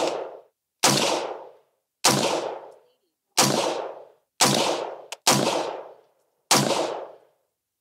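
AR-15 rifle with a 16-inch barrel firing .223 Remington 55-grain steel-case rounds: six single shots about a second apart, each with a short ringing tail.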